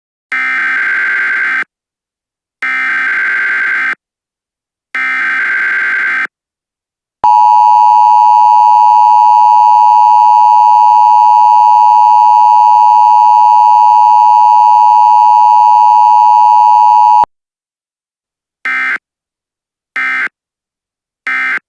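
Emergency Alert System tones: three warbling data bursts of the digital header, then the harsh two-tone attention signal held steady for about ten seconds, then three short data bursts.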